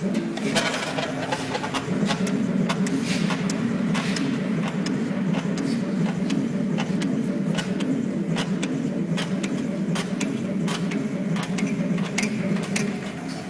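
CNC channel letter bending machine running: a steady low motor hum that comes on abruptly, with irregular sharp clicks and ticks over it.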